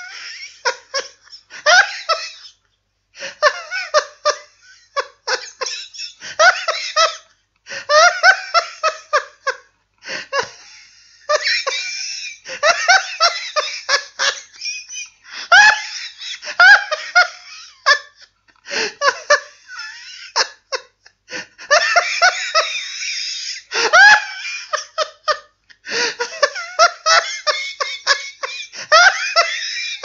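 A person laughing wildly, like a madman, in long fits of rapid bursts broken by short pauses.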